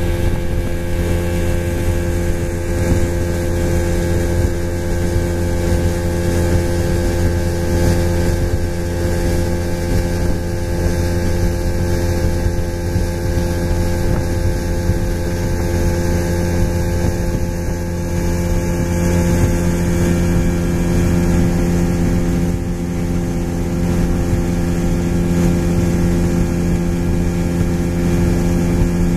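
A 50 hp outboard motor running steadily at cruising speed, pushing a boat across open water, its pitch holding even throughout.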